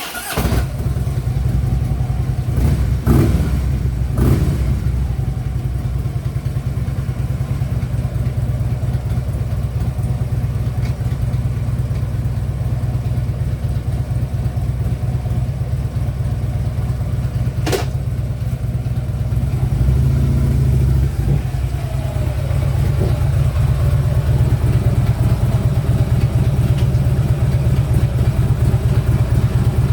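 Harley-Davidson Ultra Limited V-twin engine starting and running at idle, with one throttle blip about two-thirds of the way through. It carries the lower-end rattle that a new compensator has not cured, which the owner likens to something loose.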